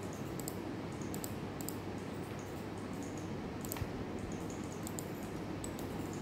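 Irregular computer mouse clicks, a dozen or so short sharp ticks, over a steady low room hum.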